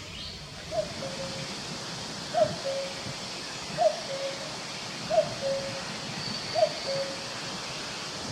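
Common cuckoo calling its two-note "cuck-oo", a higher note falling to a slightly lower, longer one, repeated evenly about every second and a half, five times. Faint steady forest hiss underneath.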